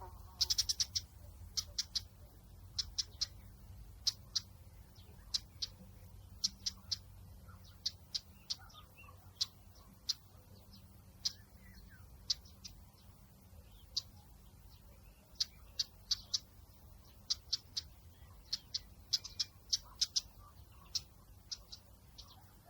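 Bird chirping: short, high notes in quick clusters of two to five, spaced unevenly, over a faint, steady low rumble of outdoor background.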